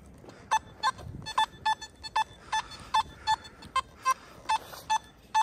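Nokta Makro Simplex+ metal detector giving repeated short high-tone beeps, about three a second, on a buried target; the high tone marks a high-conductivity, coin-type target.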